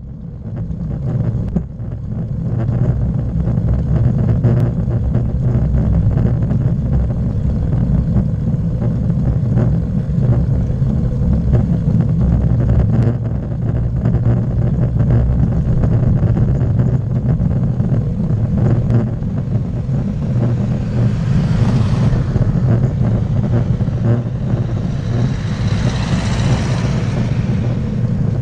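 Steady low rumble of wind and road vibration on a bicycle-mounted camera's microphone while riding, fading in over the first couple of seconds. Near the end a motor vehicle passes close by with a rising and falling hiss.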